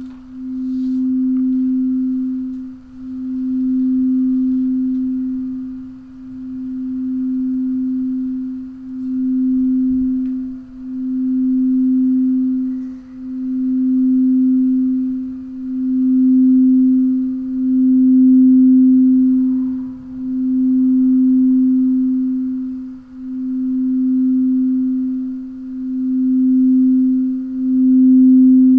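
A singing bowl sounding one steady low tone, with a faint higher overtone, that swells and fades in a slow pulse about every two to three seconds, about a dozen swells in all.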